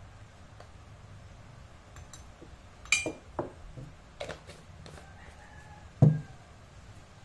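Knocks and clicks as a plastic spice shaker is handled over the work table, ending in a heavy thump about six seconds in as it is set down. A rooster crows faintly in the background just before the thump.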